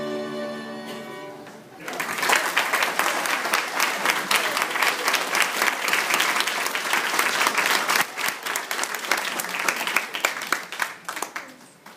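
An amateur orchestra of dulcimers, violins and cello holds its final chord, which dies away. Then an audience applauds for about ten seconds, the clapping thinning out near the end.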